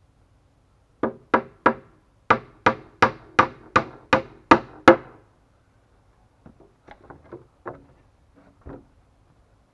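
Hammer driving nails into a wooden board: three blows, a short pause, then eight more at about three a second. After a pause come a few fainter wooden knocks and clatters as the slatted plank frame is handled.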